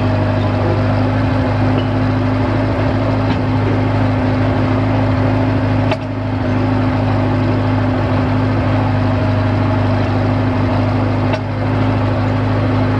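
Engine of a limited access drill rig running steadily, heard loud and close from on the rig. The level dips briefly twice, about six seconds in with a short click and again near the end.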